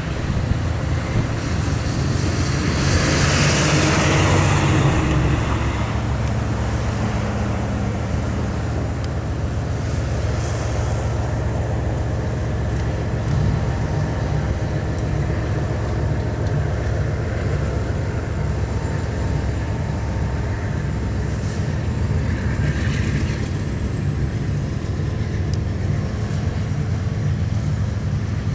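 BNSF diesel locomotives pulling a train away under power: a steady low engine drone, with a louder rushing noise about three to five seconds in and a faint high whine rising slightly near the end.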